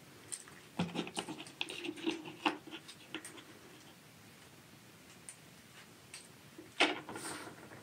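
Light clicking and scratching of a silver fox's claws on a wooden parquet floor as it moves about, busiest in the first three seconds, with one louder sharp sound about seven seconds in.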